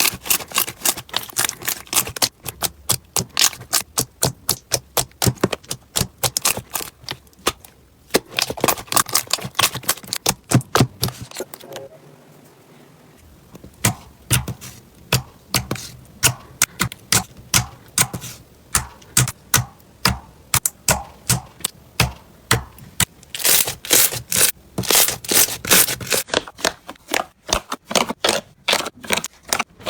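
Hands squeezing and poking slime, making a quick series of sharp clicking pops, about three or four a second, with a short lull about twelve seconds in.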